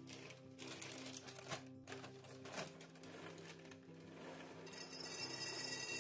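Crinkling of a plastic bag as it is handled, then, from near five seconds in, a steady stream of dried beans pouring from the bag into a glass jar, over background music.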